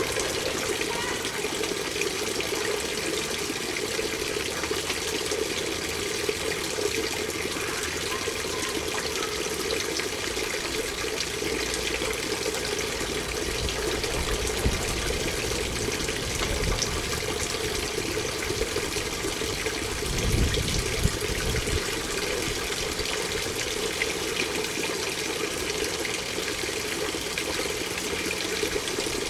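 Water from a garden waterfall fountain falling down its rounded wall into the basin: a steady splashing, with a brief low rumble about two-thirds of the way through.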